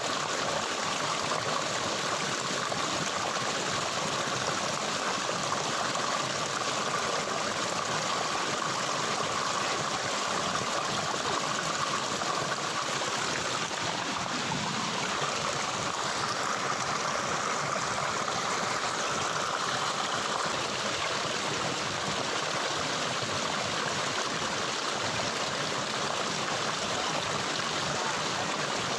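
Stream water running in a steady, unbroken rush.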